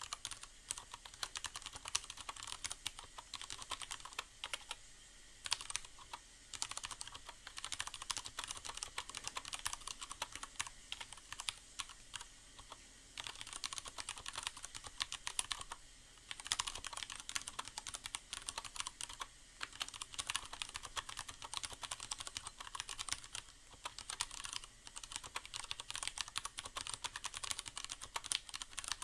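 Continuous typing on a Leopold FC750R mechanical keyboard with Cherry MX Brown tactile switches, a dense run of key clicks with a few brief pauses, over a steady hiss of rain sounds.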